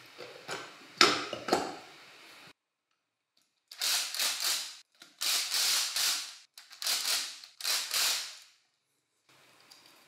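Metal parts of a hammer drill knocking together as the gear head is fitted onto the aluminium motor housing, then a screwdriver driving screws into the housing: four bursts of quick clicking, each about a second long.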